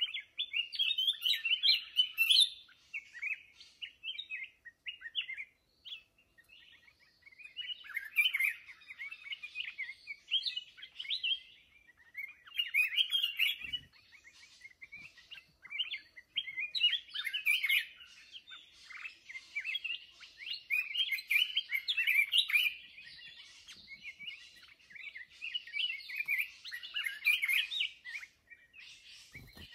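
A black-crested bulbul singing in repeated bursts of quick, broken notes, phrase after phrase with short pauses between. There are two brief low thumps, one near the middle and one near the end.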